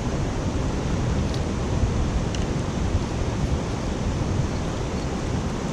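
Steady rushing noise of river water, with wind rumbling on the microphone; a couple of faint light clicks about one and two seconds in.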